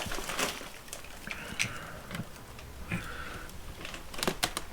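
Small clicks and scrapes of a wall light switch being handled and twisted straight in its electrical box, with a quick cluster of sharp clicks near the end.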